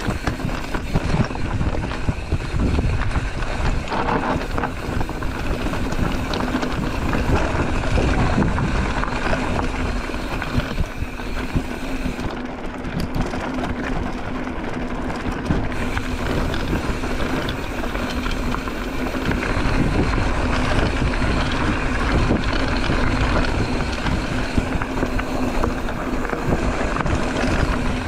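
A bicycle rolling at speed over a rough dirt trail: tyre noise and the bike rattling over bumps, with wind rushing over the microphone.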